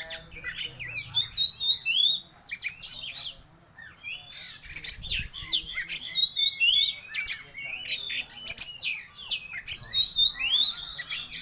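Oriental magpie-robin singing in full, vigorous song: a fast run of varied whistles, chirps and harsh notes, with a short pause about four seconds in before it starts again.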